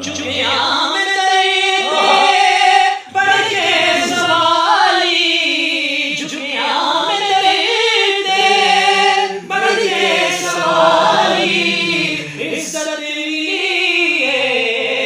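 Islamic devotional singing for a naat-style ringtone: a choir of voices singing long, wavering, ornamented notes with little or no instrumental backing.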